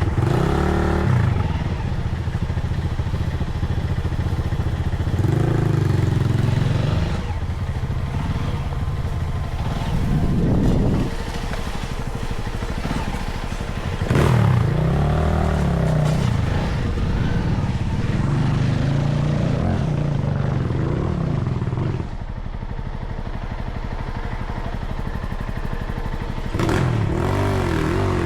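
Motorcycle engine running at low road speed, its revs rising and falling again and again as the throttle is opened and closed.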